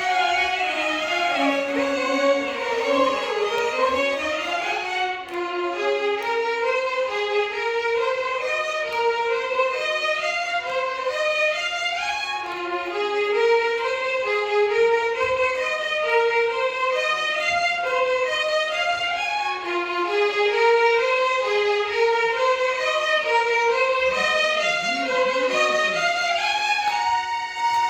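Violin orchestra playing Carnatic music: fast runs of bowed notes climbing and falling in repeating scale-like patterns, settling onto a held note near the end.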